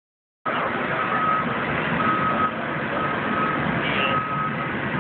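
Jet engines running, a loud steady rush with a high tone that breaks in and out about once a second.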